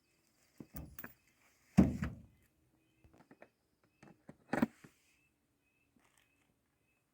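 A few clunks and knocks of wood chipper parts being handled during assembly, the loudest about two seconds in, with lighter taps in between.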